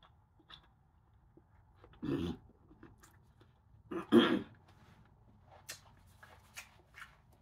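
A woman's two short wordless vocal outbursts, about two and four seconds in, the second louder, reacting to the burn of a very spicy seafood-boil sauce. Faint clicks of handling food and a cloth come in between.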